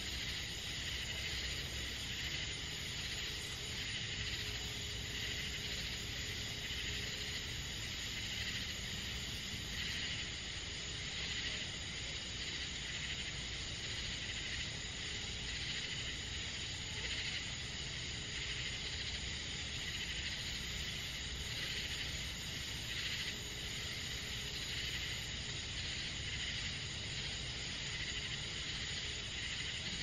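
Summer night chorus of crickets and other insects: a steady, dense high trilling that never lets up, over a faint low rumble.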